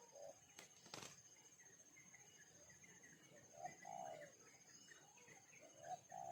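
Faint bird calls: a few short, low cooing notes in small groups, with two sharp clicks near the start and a steady high thin tone underneath.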